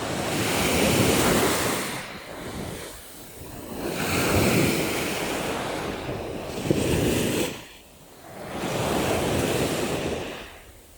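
Small sea waves washing up on a sandy beach, three surges that each swell and fade away.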